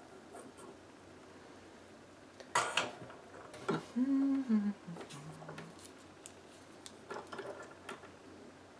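Small hard clicks and clinks of tools and parts being handled, the loudest clatter about two and a half seconds in and more near the end, with a short hum from a person in the middle, falling in pitch.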